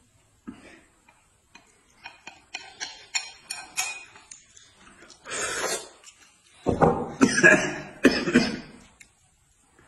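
Chopsticks clicking and scraping against a ceramic bowl as tomato-and-egg is scraped out onto a plate of rice: a quick run of sharp clinks. Louder rough, breathy bursts with some voice in them follow near the end.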